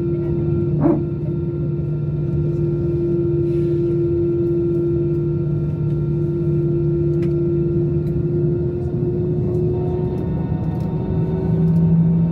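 Jet airliner's engines at low thrust heard from inside the cabin, a steady hum over a deep drone, with a short sound about a second in. About ten seconds in the pitch rises slightly and the sound grows a little louder as the engines begin to spool up for take-off.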